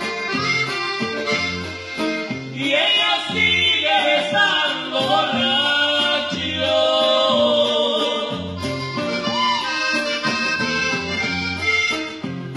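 Norteño band playing an instrumental break. A button accordion carries the melody over bajo sexto and a steady, bouncing bass, climbing to a brighter, higher run in the middle.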